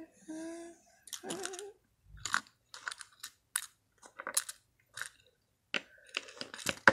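Small plastic toy figurines tapping and clicking against a plastic playset as they are handled: an irregular run of light clicks, several a second. In the first second and a half come two short hummed voice sounds with a wavering pitch.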